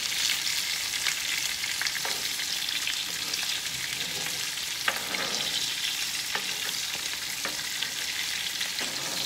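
Swai fillets sizzling steadily in hot butter and oil in a skillet, with a few short clicks and scrapes from metal spatulas against the pan as the fillets are turned over.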